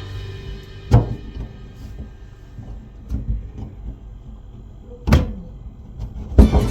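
A few sharp knocks and clunks: one about a second in, another about five seconds in and the loudest near the end, with softer low thuds between them.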